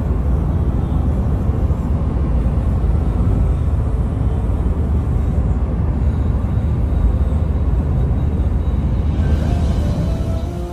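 Steady low rumble of a car driving at speed on a motorway, road and engine noise. It fades near the end as music comes in.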